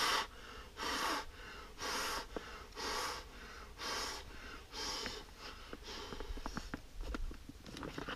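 A man blowing by mouth into the inflation valve of a Watershed Torpedo waterproof gun case, to put a little air into it: about six strong airy puffs roughly once a second, weakening after about five seconds. Light clicks of handling near the end.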